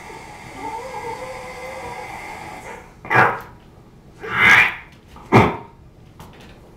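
A person imitating a dog with his voice into a microphone: three short barks, about a second apart, in the second half.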